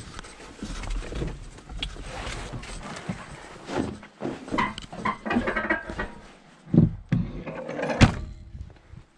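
Rustling, scuffs and knocks of someone climbing down out of a John Deere 4960 tractor cab, with two sharp knocks near the end, the louder one as the cab door is pushed shut. The engine is not running.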